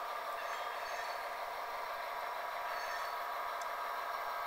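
Athearn F59PH model train with a Soundtraxx Tsunami sound decoder running, with a steady squeal of the wheels over the engine sound through its small speaker.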